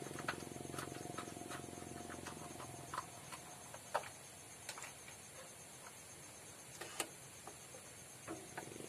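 Scattered faint clicks and light knocks of hand work refitting the rear cover on a Bajaj RE auto-rickshaw, metal and plastic parts and screws being handled. The sharpest knocks come about four and seven seconds in.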